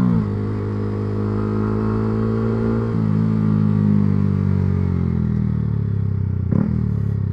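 Single-cylinder engine of a Yamaha R125 with an aftermarket exhaust, pulling through the gears. The note drops sharply with an upshift right at the start, climbs again, and drops at another shift about three seconds in. It then holds steadier, with a short clatter near the end.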